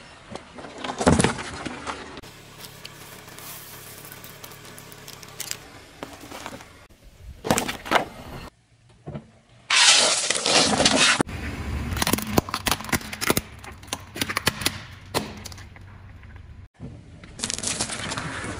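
A car tyre rolling over things on asphalt and crushing them, in several short cuts: irregular cracking and crunching, with a sharp crunch about a second in as it reaches a plastic toy, and the loudest, densest crunch about ten seconds in as it crushes a bowl of M&M candies.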